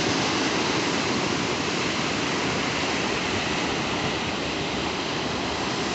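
Steady rushing of waves washing on a beach shore, an even noise with no breaks.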